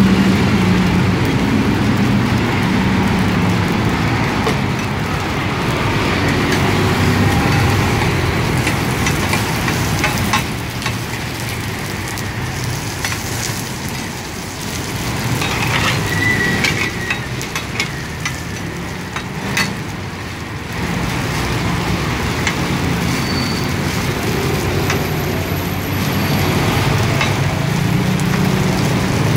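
Chive cakes deep-frying in a large wok of hot oil, a steady sizzle over a constant low rumble. In the middle stretch a metal spatula clicks and scrapes against the wok a number of times as the cakes are turned.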